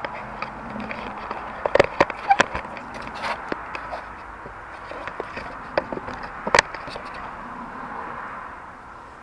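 Sharp metallic clicks and taps, loudest about two seconds in and again past six seconds, as a wire spring hose clip on the air intake is worked loose with long-nose pliers, over a steady background hiss.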